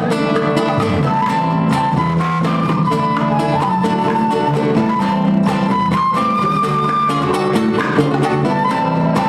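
Son cubano music: a band playing a steady rhythm under a sustained melody line.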